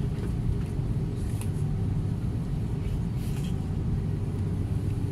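Steady low rumble inside a jet airliner's cabin: the engines running at low power while the plane is on the ground before takeoff.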